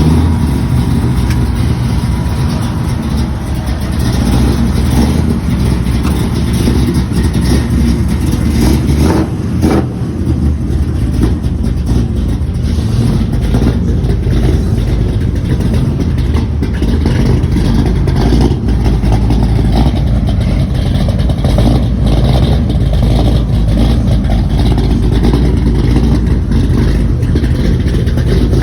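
Chevrolet Bel Air's engine running loudly and steadily, with a brief dip about nine seconds in.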